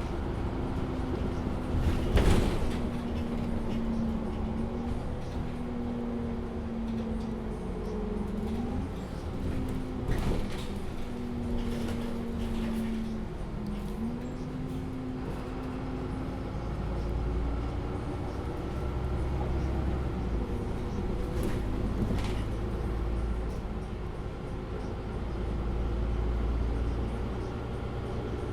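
Inside a MAN Lion's City A37 city bus: the bus running with a steady hum that dips in pitch a few times over a low rumble. Several sharp clunks cut through, the loudest about two seconds in.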